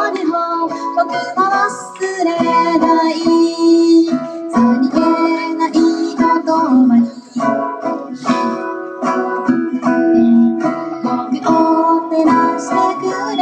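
Acoustic guitar strummed and picked as a song accompaniment, with a solo voice singing held notes over it.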